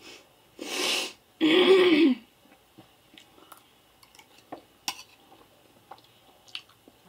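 A woman makes two loud throat sounds in quick succession, a short rough one and then a longer voiced one that falls in pitch, like clearing her throat. After them come light clicks and scrapes of a fork on a ceramic plate as she eats.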